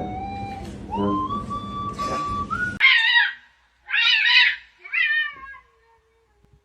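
A cat meowing: three loud, wavering meows about a second apart, after a stretch of steady background noise that cuts off suddenly just before them.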